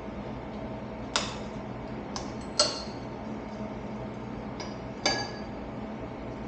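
Metal parts clinking and being set down on a hard surface: three sharp clanks with a short ring, about a second in, midway and about five seconds in, plus a couple of lighter taps. A steady hum runs underneath.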